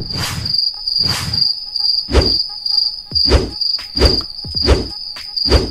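Crickets chirping in a steady, high, pulsing trill, overlaid by a string of short thumps, roughly one every half second to a second.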